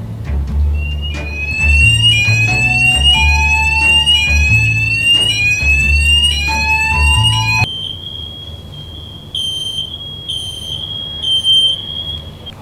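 Electronic fire-alarm sound effect: a run of rising whooping sweeps, about one a second, then about eight seconds in a switch to a steady high alarm tone with three louder beeps near the end.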